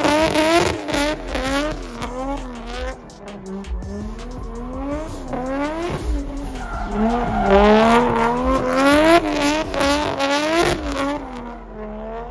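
A drift car's engine revving up and down over and over under quick throttle stabs while tyres squeal in a slide.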